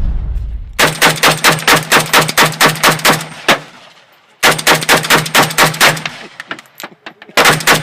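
Rapid strings of gunshots, about five shots a second: a long string of around a dozen shots, a pause, a shorter string, then another string starting near the end. Fainter single shots sound between the second and third strings.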